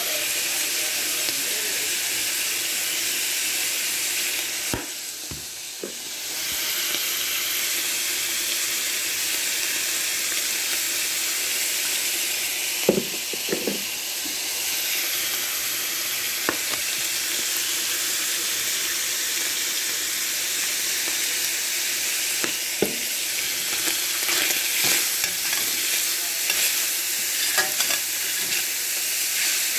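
Ground beef sizzling as it browns in a metal skillet, a steady hiss that dips briefly about five seconds in. A few knocks sound through it, and near the end a utensil taps and scrapes the pan as the meat is stirred.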